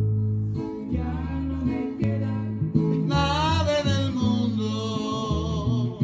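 Spanish-language song with guitars over a walking bass line. A singer comes in about a second in and holds a long wavering note from about three seconds in.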